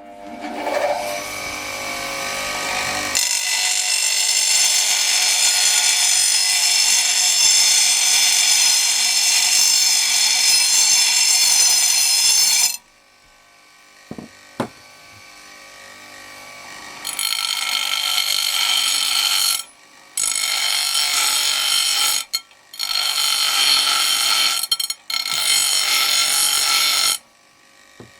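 Black & Decker Professional P7505 bench grinder running, with steel rebar pressed against the grinding wheel: one long loud grind of about ten seconds, then after a quieter pause four shorter grinds separated by brief gaps.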